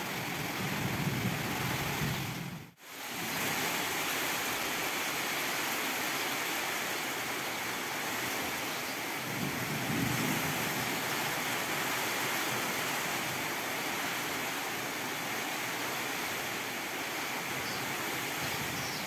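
Heavy tropical rain falling in a steady hiss, with low rumbles swelling near the start and again about ten seconds in. The sound cuts out briefly about three seconds in.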